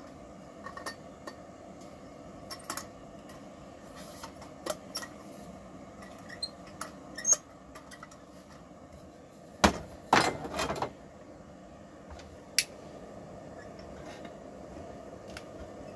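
Metal clicks and clinks from a camping stove's wire pot supports and burner being handled and set down on the gas canister. Scattered light ticks, with a louder clatter about ten seconds in and a single sharp click a couple of seconds later.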